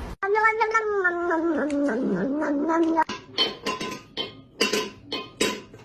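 A cat's long, drawn-out yowl, about three seconds long, its pitch wavering and dipping in the middle, followed by a quick run of short, sharp sounds.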